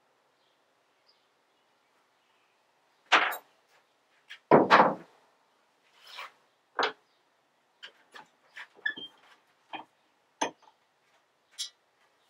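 Irregular knocks, clunks and clicks of tools and a steel shovel head being picked up and handled on a wooden workbench. The two loudest knocks come about three and five seconds in, followed by a string of lighter taps and clicks.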